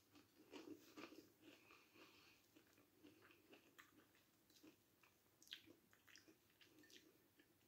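Faint close chewing of a breadcrumbed cod fish cake: soft wet mouth clicks and smacks at irregular intervals, one a little louder about five and a half seconds in.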